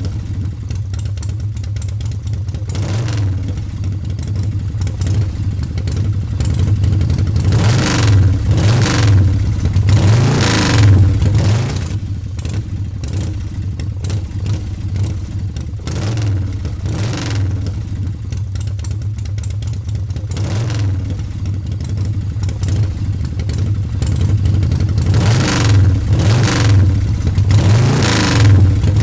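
Engine running with a steady low drone, revved up and back down about a third of the way in and again near the end.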